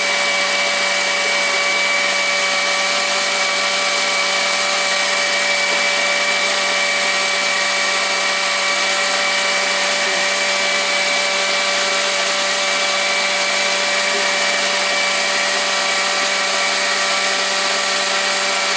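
Electric blender running steadily at one speed, puréeing tomatillos, serrano peppers, cilantro, onion and garlic into a green salsa: a loud, even motor hum with a high whine.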